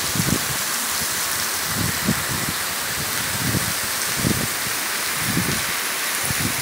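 Heavy rain falling steadily on the street and rooftops, a dense even hiss, with scattered brief low bumps.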